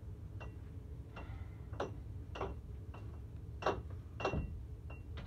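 A run of about ten light, irregular clicks and taps, the loudest a little under four seconds and a little over four seconds in, over a low steady hum.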